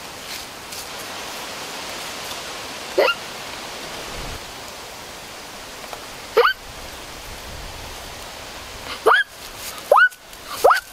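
Five short yelps, each sliding quickly upward in pitch, the first about three seconds in and three more close together near the end, over a steady hiss.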